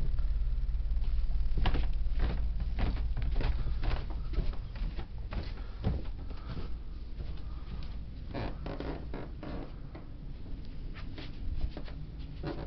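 Footsteps and camera-handling knocks, irregular and scattered, from someone walking down carpeted stairs and across a floor, over a low steady rumble that is louder for the first few seconds and then drops.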